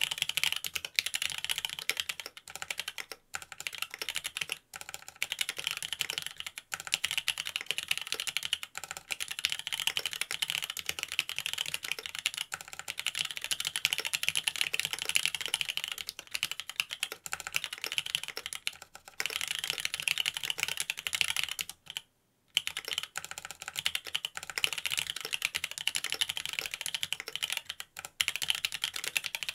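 Continuous typing on a Mont Cervin custom mechanical keyboard with Cherry Wyse Black linear switches on a carbon fiber plate: a steady, fast stream of key clacks, with one half-second break about three-quarters of the way through.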